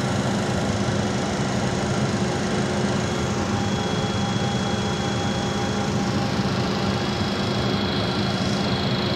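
Steady hum and whine of a Bombardier Challenger business jet's engines, heard inside the cockpit while the jet taxis. A thin high whine joins in about three and a half seconds in.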